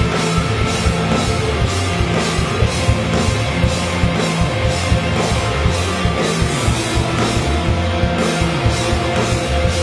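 Loud rock music with distorted electric guitars and a drum kit keeping a steady beat, the cymbals struck about four times a second.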